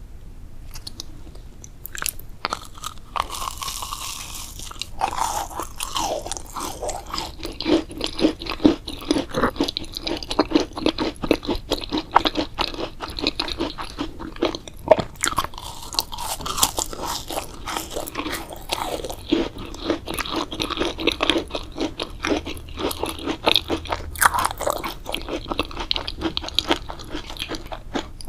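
Close-miked chewing of crunchy food: rapid, irregular crunches and bites, starting about two seconds in and going on steadily.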